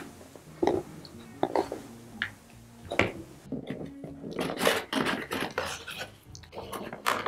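Cardboard packaging being handled: a few light knocks and taps, then from about halfway through a busier stretch of rubbing, sliding and rustling as a cardboard insert and printed paper guides are lifted out of the box.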